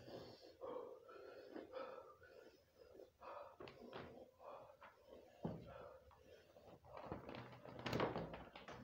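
A stiff cardboard card handled in the hands: irregular rustles and light knocks, with the loudest clatter about eight seconds in as the card is flipped over.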